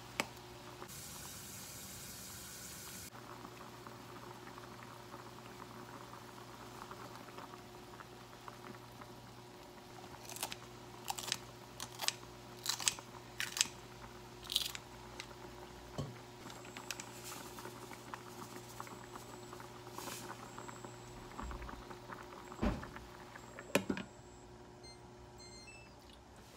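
A pot of spam kimchi stew boiling on the cooktop over a steady hum, with a brief hiss about a second in. Partway through comes a string of sharp clicks as green chili is snipped into the pot with kitchen scissors, and near the end two clanks as a glass lid is set on the pot.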